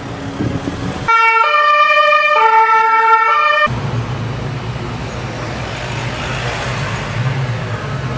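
Two-tone siren alternating between a low and a high note, four notes in about two and a half seconds, starting about a second in and cutting off sharply. After it comes a steady low rumble.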